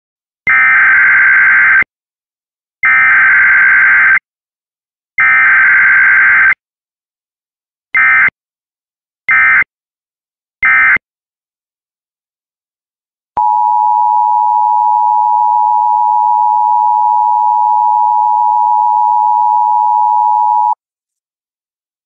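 Emergency Alert System tones. First come three long digital data-burst headers, each about a second and a half, then three short bursts. About 13 seconds in, the steady two-tone EAS attention signal sounds, held for about seven seconds before it cuts off.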